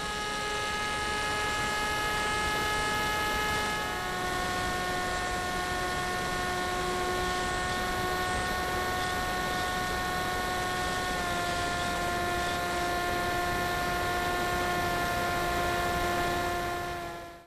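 Turnigy D2826/10 1400 kV brushless motor spinning a 7x4 APC propeller on a Tek Sumo flying wing, heard from the onboard camera: a steady whine over rushing wind. It steps down in pitch twice, about four seconds in and again after about eleven, and fades out near the end.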